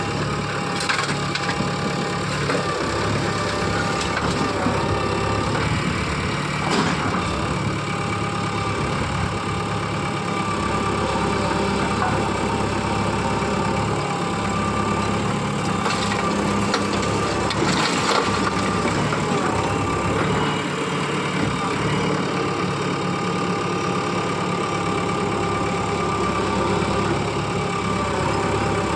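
JCB backhoe loader's diesel engine running steadily, with a few sharp cracks and crunches over it.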